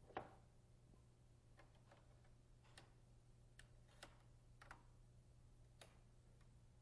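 Near silence broken by faint, scattered metallic clicks about once a second from a rifle's bolt and action being worked by hand as it is loaded, with one slightly louder click at the very start.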